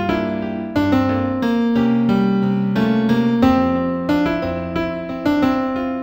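New-age instrumental piece in F minor played on a piano-like keyboard: a run of struck melody notes over held bass notes that change every second or so.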